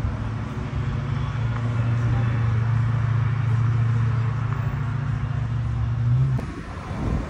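Car engine running steadily at a constant low pitch as a car drives out, cutting off abruptly about six seconds in.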